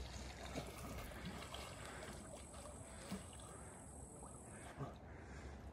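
Faint lapping and trickling of lake water around a person swimming, with a couple of small clicks about three and five seconds in.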